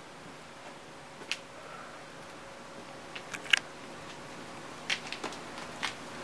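Quiet room tone with a handful of short, sharp clicks and taps scattered through it, the loudest a little past halfway.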